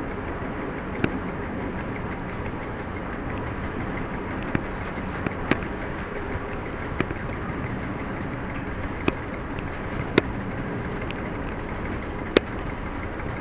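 Class 731 diesel locomotive under way, heard from its cab: a steady running noise of engine and wheels, with a handful of sharp clicks at irregular intervals.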